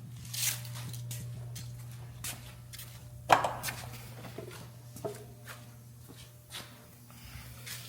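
Scattered clicks and knocks, the loudest about three seconds in, over a steady low hum.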